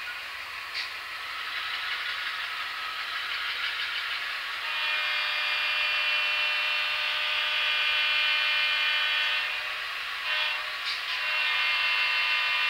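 HO-scale Atlas GE U-boat diesel models with Tsunami DCC sound decoders running slowly, their recorded GE diesel engine sound playing through the onboard speakers. About five seconds in, the air horn sounds one long blast, and a second blast comes near the end.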